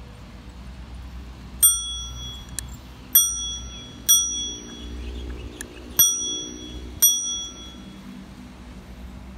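Handlebar bell of an oBike share bicycle rung five times while riding, each a bright ding that rings on briefly, over a steady low rumble.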